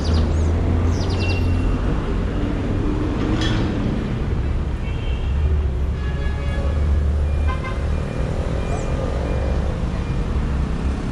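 City street traffic: a steady rumble of passing cars, with birds chirping briefly about a second in.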